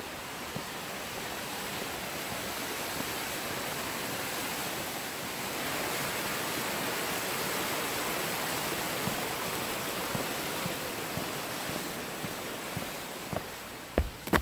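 Creek water rushing steadily, a little louder midway and easing near the end, with a few footsteps near the end.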